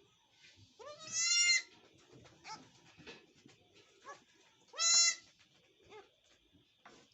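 Nagra goat kids bleating: two loud, high-pitched bleats about four seconds apart, each rising at the start and then held for half a second or so, with faint knocks and rustling in between.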